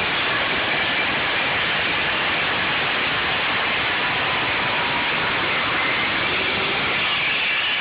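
Chainsaw running at full throttle and cutting into a wooden door, heard as a steady, hiss-like noise that holds an even level throughout.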